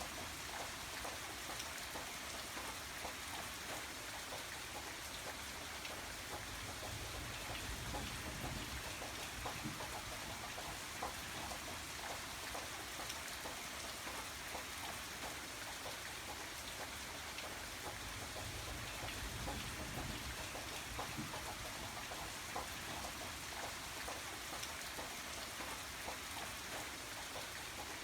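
Steady rain: an even hiss dotted with many small drop hits. A low rumble swells up twice, about a third of the way in and again past the middle.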